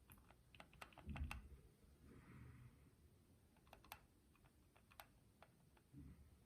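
Keychron Q2 mechanical keyboard's spacebar being pressed, faint: scattered light clicks with a deep thump about a second in and another near the end.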